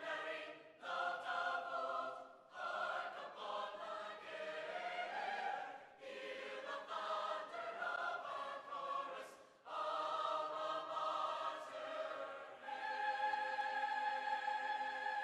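Background music: a choir singing slow, sustained phrases with short breaks between them, ending on a long held chord over the last few seconds.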